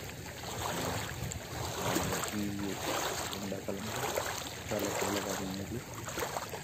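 Small waves lapping and washing over the pebbly shallows at the sea's edge, with wind on the microphone. A faint voice comes through in short snatches several times.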